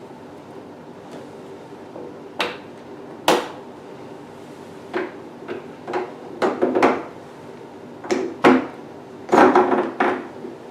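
Hard plastic clicks and knocks as beauty-machine handle connectors are pushed into and pulled out of their sockets, about a dozen, some in quick runs, over a steady hum.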